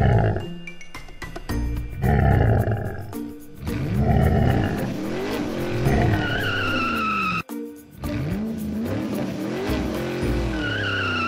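Cartoon-style car sound effects: an engine revving up and down twice, each rev ending in a tyre squeal, over background music. Loud rough bursts of noise come before them in the first few seconds.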